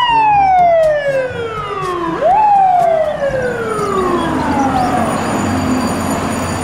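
FDNY ladder truck's siren wailing. The tone falls slowly for about two seconds, sweeps quickly back up, then falls slowly again and fades into street traffic noise.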